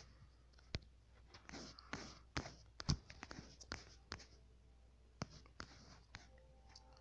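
Faint, irregular taps and brushing sounds from fingertips tapping and sliding on a phone touchscreen, about a dozen small clicks, the loudest about three seconds in.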